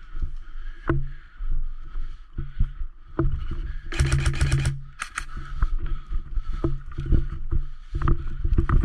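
Airsoft gun firing: one rapid full-auto burst of about seven shots, lasting under a second, about four seconds in. Sharp single cracks and knocks are scattered through the rest, over a steady rumble of movement.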